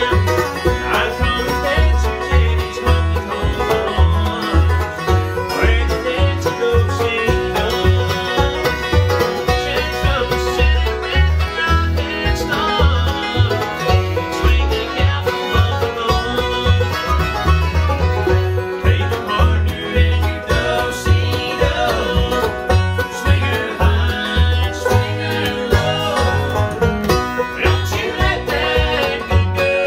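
Acoustic bluegrass string band playing live: banjo rolls over acoustic guitar strumming, with an upright bass plucking a steady beat underneath.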